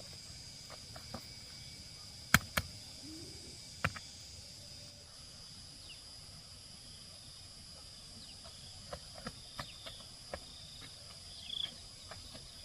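Steady high-pitched insect drone, with a few sharp knocks, the loudest about two and a half seconds in, and lighter ticks later.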